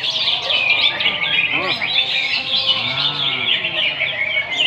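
Many caged songbirds singing at once: a dense, continuous chorus of rapid high chirps and trills, with no single bird standing out.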